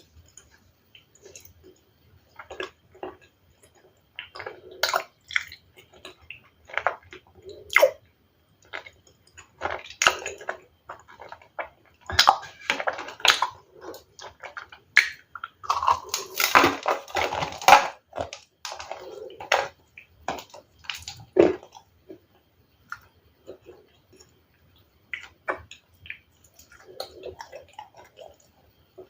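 A person biting and chewing ice close to the microphone: irregular sharp crunches and cracks, coming thick and fast in the middle and more sparsely near the start and end.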